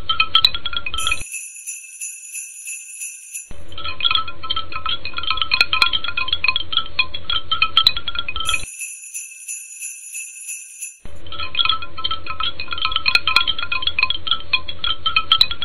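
A looping track of tinkling bells and chimes laid over the picture. Dense jingling stretches of about five seconds alternate with short stretches of a thin, high shimmer, switching abruptly: a stretch of shimmer begins about a second in and another near nine seconds.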